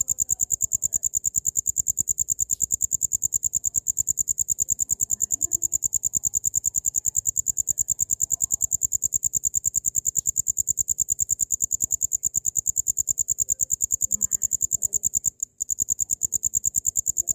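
Cricket chirping continuously: a high, shrill trill of fast, evenly spaced pulses, broken once for a split second about 15 seconds in.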